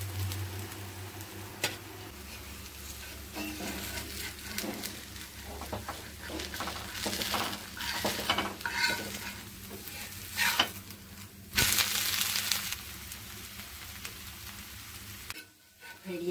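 Dosa batter and oil sizzling steadily on a hot dosa griddle, with a few short clicks.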